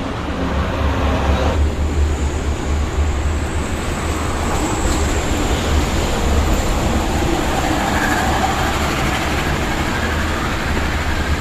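Heavy highway traffic passing close by: a steady rumble of tyres and engines, growing fuller about a second and a half in as a large vehicle comes past.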